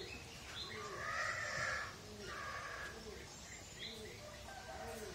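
Birds chirping and cooing, with a louder animal call about one to two seconds in.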